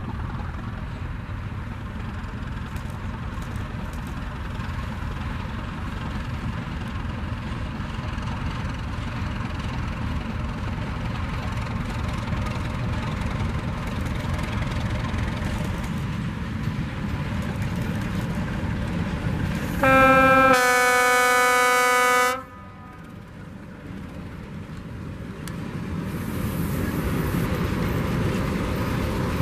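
ČSD class 751 diesel locomotive approaching with a freight train. A steady low rumble runs until a horn blast of about two and a half seconds, about two-thirds of the way in. After the blast the engine noise grows louder as the locomotive nears.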